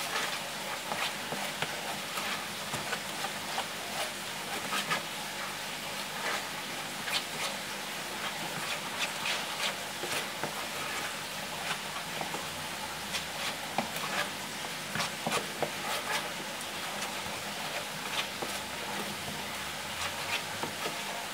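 Thick, wet batter being stirred in a plastic bowl: irregular wet scraping and clicking of the utensil against the bowl, over a steady hiss.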